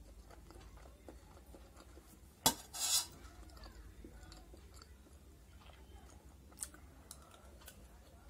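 Steel spoon scooping pasta off a steel plate: one sharp clink against the plate, then a short scrape, with a lighter clink later and faint chewing in between.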